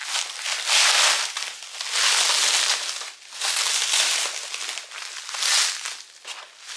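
Plastic bubble wrap crinkling and rustling as it is pulled open and handled to unwrap a package, in several loud bouts.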